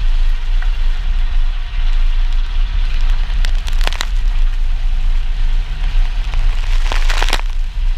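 Truck driving along a muddy dirt road: a steady low engine and tyre rumble, with a few crackling bursts of mud and water spattering against the vehicle.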